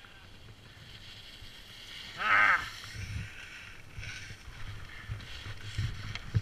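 Ski edges scraping and skidding on hard-packed snow as a skier carves down and stops, with wind rumble on the microphone. About two seconds in comes a brief, loud, high-pitched squeal, and near the end a couple of low knocks.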